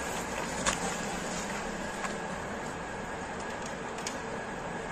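Steady background noise with a faint hum and a single light click about two-thirds of a second in.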